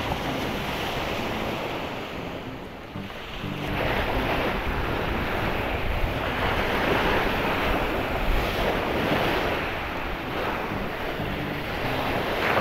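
Surf waves washing onto the beach, with wind buffeting the microphone. The wash dips about two to three seconds in, then builds again.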